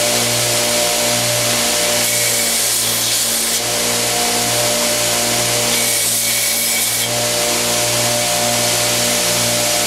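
Homemade 2x72 belt grinder running steadily with a motor hum, the belt grinding a knife handle. The grinding hiss grows louder twice, about two seconds in and again about six seconds in, as the handle is pressed to the belt.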